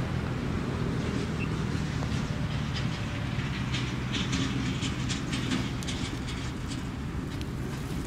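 A motor running steadily with a low hum, with a patter of faint small clicks about halfway through.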